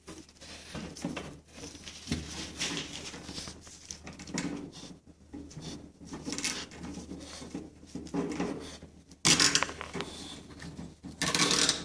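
A plastic zip tie being threaded through a wire crate door and pulled tight, with small clicks, rustles and rattles of handling. Two louder short bursts of noise come near the end.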